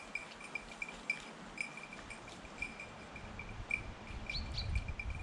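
Faint, irregular tinkling of a small bell on the working Gordon setter, about two or three rings a second at one high pitch, with a short high chirp about four seconds in and a low rumble near the end.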